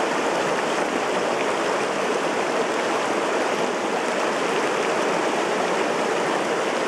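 Shallow mountain river running fast over rocks and riffles: a steady, even rush of water.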